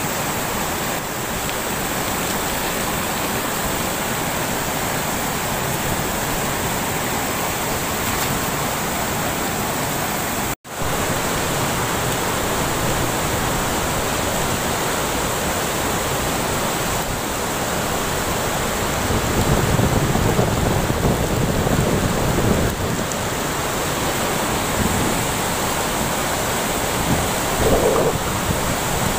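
Floodwater rushing steadily over a low concrete weir, an even roar of noise with no distinct tones. The sound cuts out for a moment about ten seconds in, and there are a few seconds of heavier low rumble in the second half.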